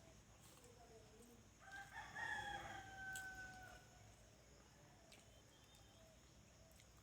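A rooster crowing once, a single call of about two seconds, held and sliding slightly down at the end.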